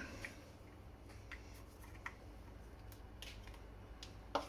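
Faint, scattered light clicks and taps of hands handling a small metal radar receiver module, with a sharper click just before the end.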